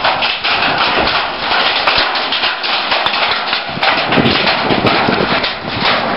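Large hailstones pelting a carport roof and parked vehicles: a loud, continuous clatter of hard impacts.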